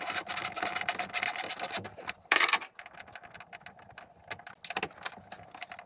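Ratchet wrench clicking rapidly as a nut is backed off, then slower, scattered clicks. A short, loud noise cuts in about two and a half seconds in.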